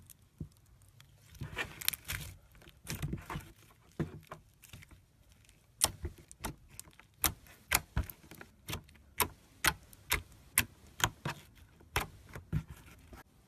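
Slime being handled and squeezed, making a string of sharp clicks and pops. They come irregularly at first, then fall into a steadier run of about two a second from about six seconds in.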